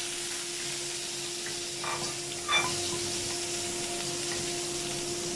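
Chopped garlic and ginger sizzling in hot oil in a wok as a wooden spatula stirs them, with a couple of knocks of the spatula against the wok around two and a half seconds in. A steady low hum runs beneath.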